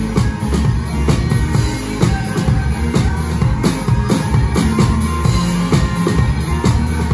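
A live band playing an instrumental passage of an upbeat Black Sea (Karadeniz) horon-style song: drum kit and electric guitars, with the drums close and prominent.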